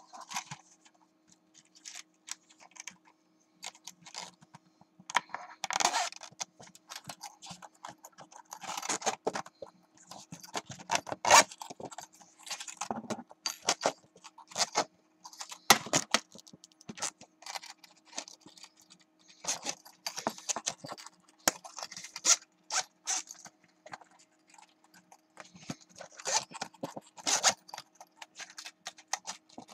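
Irregular clicks, scrapes and rustles of a plastic CD carry case and discs being handled, over a faint steady low hum.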